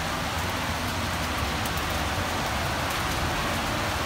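Steady hiss of rain falling, with scattered light ticks of drops, over a low steady rumble.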